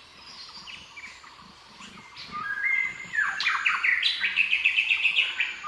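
Small bird singing: a few faint chirps, then from about two seconds in a louder song that turns into a fast run of repeated high notes, several a second.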